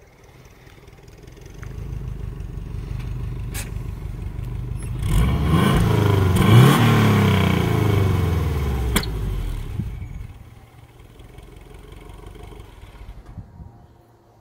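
2002 Subaru WRX's turbocharged flat-four engine running and revved, its pitch sweeping up and down for a few seconds in the middle, then settling back to a lower steady note. Two sharp clicks are heard, one before the revving and one as it ends.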